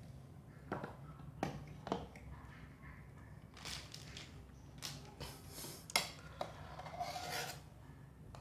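Kitchen handling sounds: three short knocks, then several brief scraping, rubbing noises with one more knock among them.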